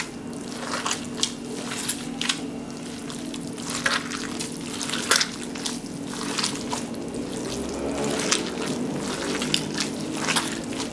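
Hands kneading a soft, wet mixture of shredded pork, milk-soaked bread and hogao in a bowl, with irregular short squelches and wet clicks.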